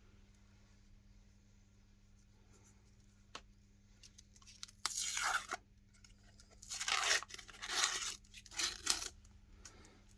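Crisp tearing and crunching of a big ice cream cone, in about five short bursts over the second half, under a faint steady hum.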